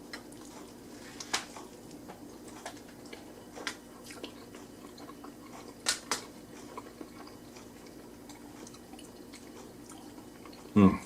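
A person chewing a mouthful of breakfast taco, with scattered soft clicks of the mouth and food over a steady low hum, and a short voiced sound near the end.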